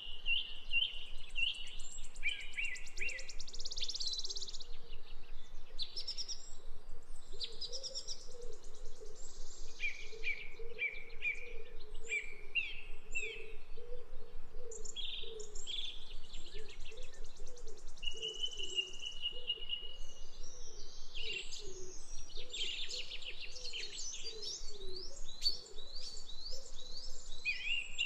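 Birds chirping and calling: high, quick repeated chirps, trills and short runs of notes, one after another, with a fainter low warbling underneath.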